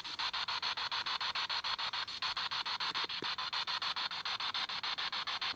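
Radio static chopped into rapid, even pulses, about ten a second, as a spirit box sweeps through radio stations while questions are put to the spirits.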